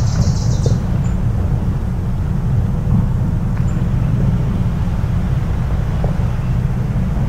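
Coastal outdoor ambience dominated by a steady low rumble, with a brief bird chirp right at the start.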